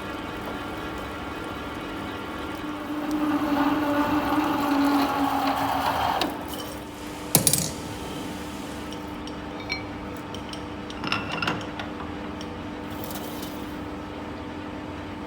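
Metal lathe running with a steady hum, louder for about three seconds in the middle while it cuts the steel pin. Then comes one sharp metallic clink and a few lighter clinks of metal on metal.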